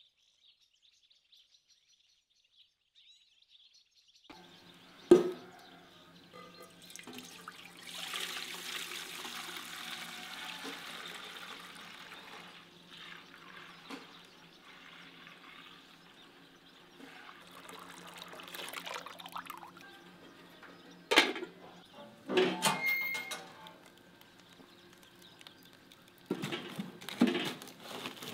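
Fresh cow's milk being poured from one pot into a large aluminium pot, a running, splashing pour. Later come several sharp knocks and clatters of wood and metal as logs are fed into a wood-burning stove.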